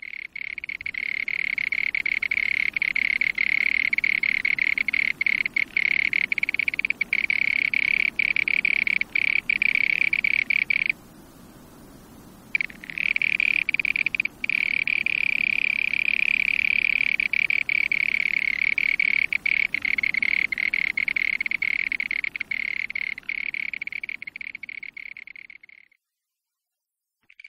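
A dense, steady chorus of frogs calling at a high pitch. It breaks off for about a second and a half near the middle and fades out near the end.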